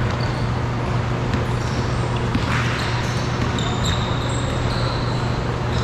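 Pickup basketball on a hardwood gym court: sneakers squeaking in short high chirps several times and the ball bouncing, over a steady low hum.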